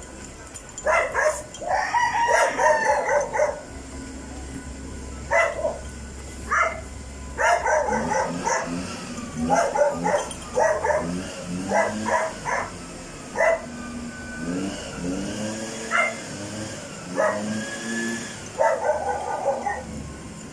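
Dogs barking repeatedly in short volleys, with lower wavering calls in the middle stretch.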